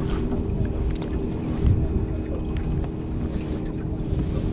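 A boat's motor humming steadily under wind buffeting the microphone, with a couple of faint ticks.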